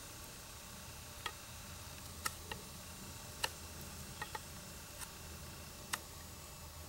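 Knife shaving a wooden axe handle to fit the head: a scatter of short, sharp clicks, about eight in all at irregular spacing, as the blade takes off thin cuts.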